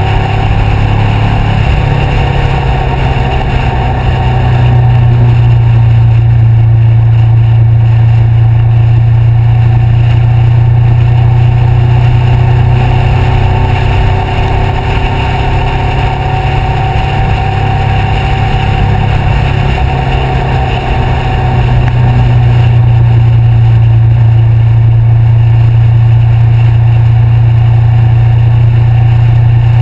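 2013 Honda CBR500R's parallel-twin engine through a Two Brothers aftermarket exhaust, running at a steady road cruise. It gets louder about four seconds in, eases off briefly around twenty seconds, and rises again a couple of seconds later.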